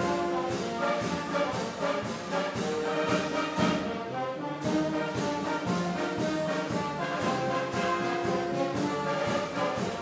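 Orchestral background music with brass and a steady beat.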